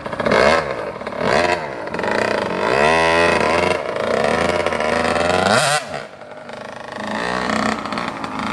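85cc single-cylinder two-stroke engine of a Suzuki RM85 dirt bike, revved hard several times, its pitch sweeping up and down. It is held high for a couple of seconds and drops off sharply about six seconds in, then picks up again. It is being revved high into the power band for a wheelie attempt on grass.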